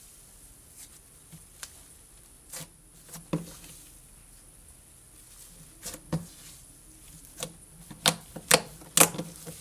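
Fluffy slime being squeezed and pressed by hand, giving scattered sharp wet pops and clicks, with three louder pops in quick succession near the end.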